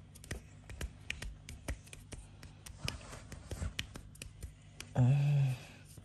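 Soft, irregular taps and rustles of hands moving on a child's bedding and pillow, with a short hummed "mm" from a voice about five seconds in.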